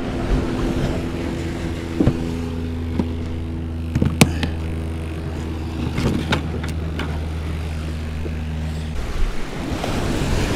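A motor engine idling with a steady hum that cuts off abruptly about nine seconds in, with a few sharp clicks and knocks over it.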